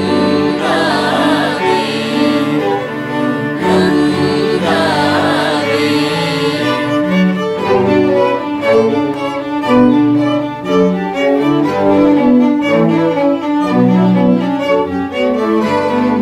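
String ensemble of two violins, viola, cello and double bass playing bowed; from about seven seconds in the notes turn shorter and more rhythmic.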